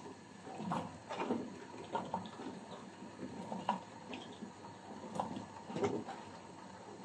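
Diced zucchini tipped from a plastic bowl into a stainless steel pot, the pieces dropping in with soft, irregular thuds and light knocks.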